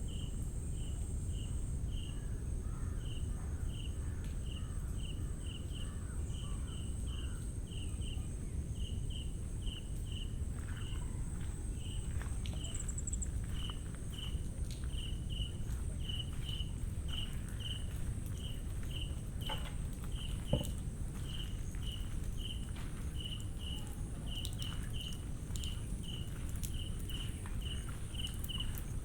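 Insects in a mangrove forest: a steady high-pitched buzz with a short chirp repeated about twice a second. Footsteps on the wet forest floor sound underneath, with one louder knock about two-thirds of the way in.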